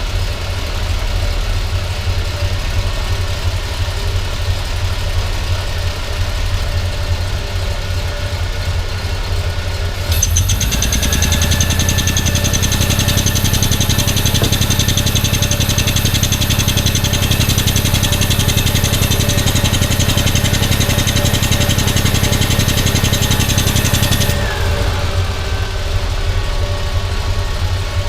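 Triumph TR5's fuel-injected 2.5-litre straight-six running at idle. From about ten seconds in, for roughly fourteen seconds, it gets louder, with a hiss and a whine that rises to a steady pitch and drops away when it ends.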